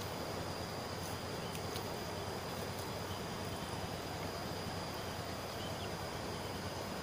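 Steady riverside ambience: the rush of a fast muddy river and wind on the microphone, with a thin, steady high-pitched insect call.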